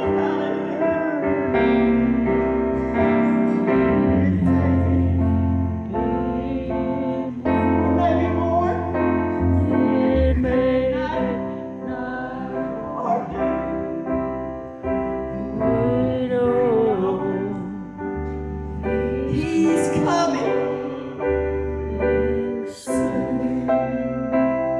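A gospel song sung with vibrato over piano accompaniment, with held notes and sustained low bass notes underneath.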